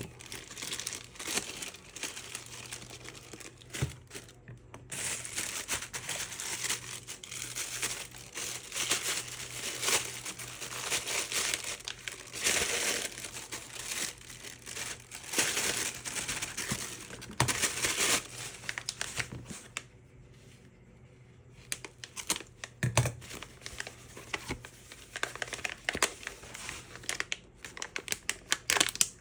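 Packaging being handled and unwrapped, crinkling and rustling in irregular bursts, with a short lull about two-thirds of the way through and a couple of light knocks.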